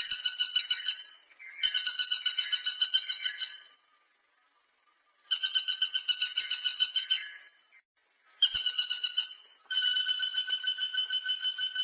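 Woodpecker calling in rapid rattling bouts of about two seconds each, every bout a fast even run of high, ringing notes at about eight a second, with short pauses between bouts.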